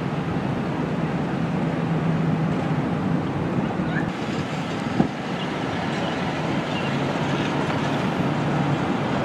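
Steady engine hum and road noise of a car driving slowly, heard from inside the vehicle, with one short knock about five seconds in.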